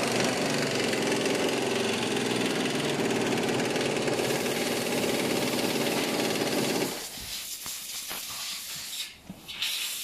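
A machine running loudly and steadily with a fast, even buzz, cutting off abruptly about seven seconds in; a few light knocks follow.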